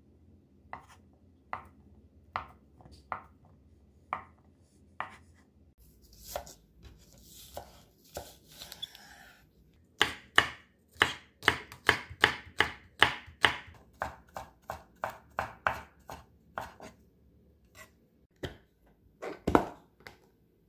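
Chef's knife chopping on a wooden cutting board. First come single, separate cuts about a second apart through a block of Spam. From about ten seconds in there is quicker, rhythmic chopping of green onion, about three strokes a second. A heavier thump follows near the end.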